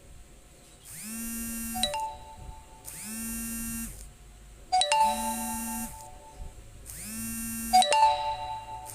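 Mobile phone ringing with an incoming call: an electronic ringtone made of a buzzy rising tone about a second long that repeats every two seconds, with chime-like ding notes between the tones.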